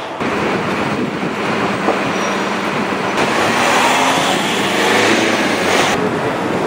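Steady rushing city traffic noise, with abrupt changes in level and tone about three seconds in and again near the end.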